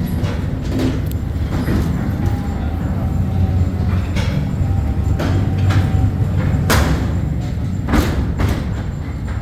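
Mine train running on rails through a tunnel inside the mountain: a steady low rumble, a few sharp clanks, and a faint thin squeal through the middle.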